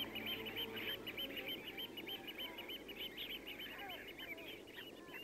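A flock of wading birds calling in flight: a rapid, overlapping run of short, high piping notes, several a second, thinning out near the end.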